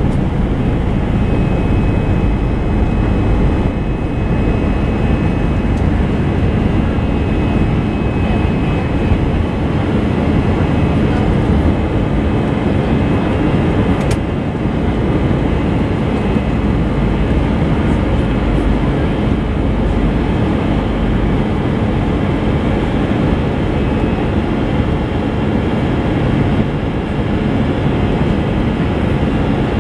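Airbus A320-family jet engines running at takeoff thrust during lift-off and the initial climb, heard inside the cabin beside the engine as a steady, loud rumble. A single brief click comes about halfway through.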